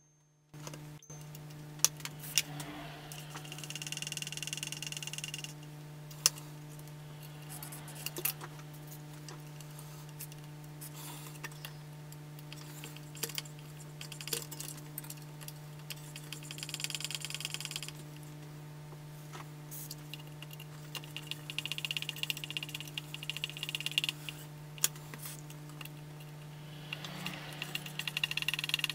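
Short hisses of PRF 7-78 contact-cleaner spray squirted onto the amplifier's potentiometers, four bursts of a second or two each. Between them come small clicks and rattles as the pots are worked, over a steady low hum.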